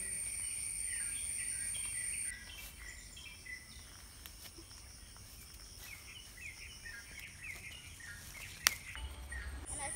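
Birds chirping over a steady high-pitched insect buzz; the buzz drops away after about two seconds and comes back near the end. A single sharp click sounds about eight and a half seconds in.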